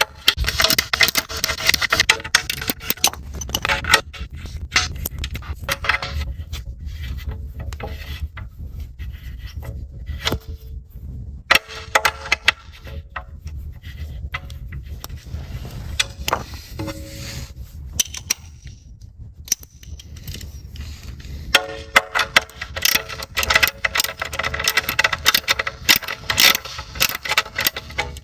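Small hand-held ratcheting bit driver clicking rapidly as it backs out the 4 mm hex bolts of a motorcycle engine guard plate. The clicking comes in long runs at the start and over the last several seconds, with scattered clicks between.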